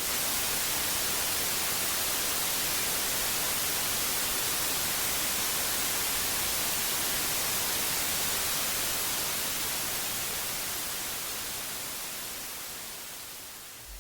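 Steady, bright static hiss like white noise that comes in abruptly and fades out gradually over the last four or five seconds.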